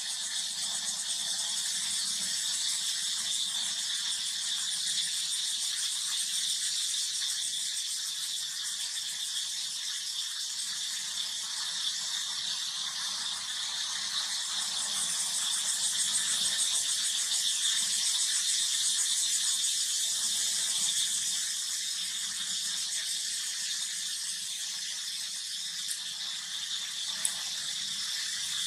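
Steady shrill insect chorus with a fast pulsing texture, swelling for several seconds in the middle, with a couple of light clicks near the end.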